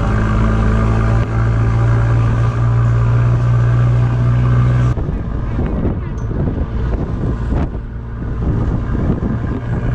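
Songthaew pickup-truck taxi engine running at a steady hum while driving, heard from the open rear passenger bed. About halfway through the steady hum breaks off into rougher engine and road noise with passengers chatting.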